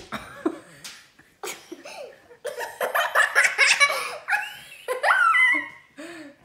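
A young boy laughing and giggling in short bursts that build to fuller laughter about halfway through.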